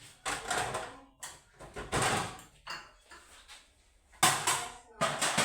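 Short scraping, clattering handling noises from a refrigerator being emptied: four brief bursts, the loudest about four seconds in.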